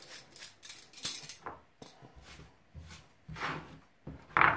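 Hand vegetable peeler scraping strips off a parsnip in quick repeated strokes, about three a second, for the first second or so. Then come a few scattered scrapes, the loudest a short rasp near the end.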